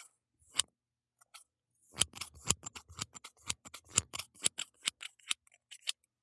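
Barber's scissors snipping hair close to the ear, recorded binaurally. A single snip, then from about two seconds in a quick run of snips, about five a second.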